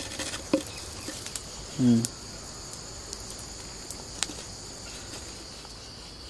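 Steady high-pitched insect chirring, with a few light clicks of a spoon scraping spice paste out of a terracotta bowl into a clay cooking pot. A person makes one short vocal sound about two seconds in.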